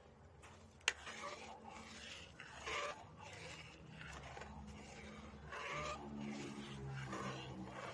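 Metal spatula scraping and stirring through coconut milk in an aluminium pan, in repeated strokes, with one sharp click of metal on the pan about a second in. The milk is being cooked down over the fire so its water evaporates and the oil separates. A low steady hum runs underneath in the second half.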